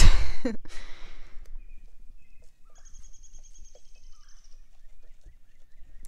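Quiet outdoor pasture ambience. A short rush of noise comes at the start, then a faint, high, even trill lasts about two seconds in the middle.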